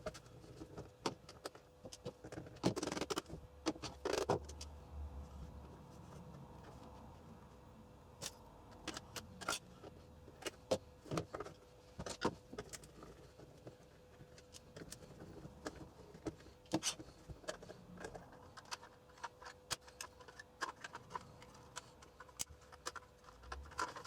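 Plastic instrument case being taken apart by hand: scattered light clicks, taps and small scrapes from the screws and case halves, with a few louder knocks about three and four seconds in.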